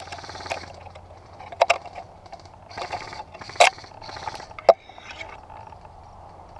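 Dry brush and branches rustling in short bursts against a person moving through a thicket, with four sharp cracks: two close together about a second and a half in, then single ones around the middle and a little later.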